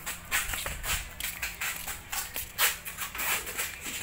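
Irregular rustling, scraping and light rattling, about two to four short scrapes a second: handling noise as a small chainsaw is moved and turned over.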